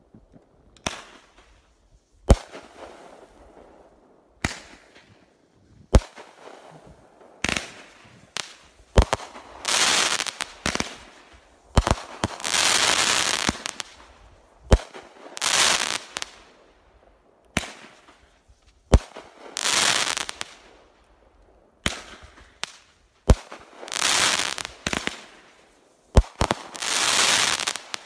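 Pyro Demon 'Firing Line' 500-gram, 25-shot consumer firework cake firing shot after shot, a second or two apart. Each shot is a sharp report as the shell launches or breaks, and several of the breaks are followed by a sizzling hiss lasting one to two seconds.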